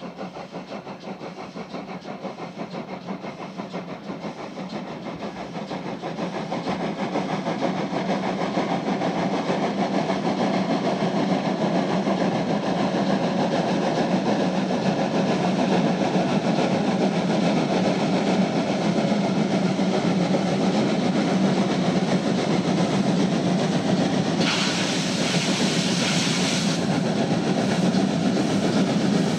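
Heavy German 2-10-0 steam freight locomotive working hard, its loud exhaust beats growing louder as it approaches. A burst of hissing lasts about two seconds near the end.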